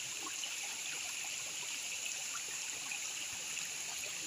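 Shallow river running steadily over rocks, with faint small splashes from hands working in the water at the bank.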